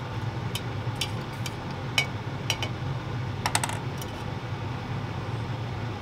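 Metal spoon clinking against a stainless steel camp mug as coffee is stirred: scattered light clinks, with a quick run of several about three and a half seconds in. A steady low hum runs underneath.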